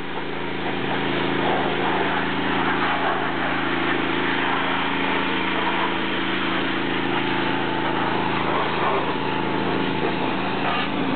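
Pressure washer running: a steady small-engine hum under the hiss of the spraying water jet.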